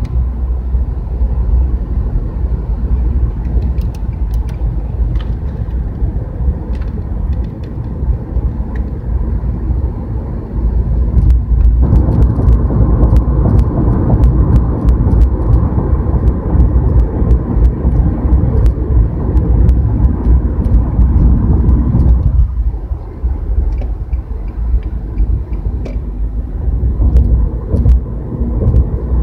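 Road and tyre noise of a car driving at highway speed, heard from inside the car: a steady low rumble that gets louder about twelve seconds in and eases back about ten seconds later.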